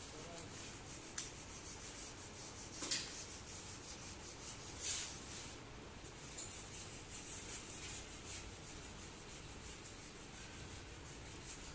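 Metal parts of a tractor's planetary gear and brake assembly scraping and rubbing as they are turned and fitted by hand, with a few light metallic clicks along the way.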